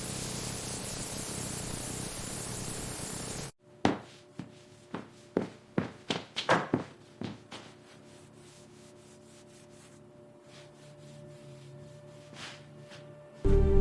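A steady hiss that cuts off abruptly, followed by a quick run of about ten sharp knocks and clicks over three or four seconds, then quiet. Music comes in at the very end.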